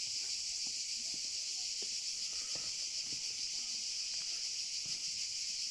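Dense, steady chorus of crickets: a continuous high-pitched shrill, incredibly loud.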